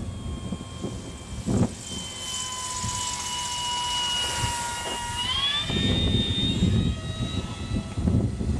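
Electric motor and propeller of a radio-controlled Profile Kellett kit gyrocopter whining steadily in flight, the pitch climbing sharply about five seconds in. Low gusts of wind noise rumble on the microphone.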